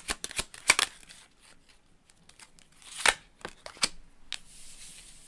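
Tarot cards being shuffled and handled: a quick run of sharp card snaps in the first second, then a louder slap about three seconds in and a few lighter clicks.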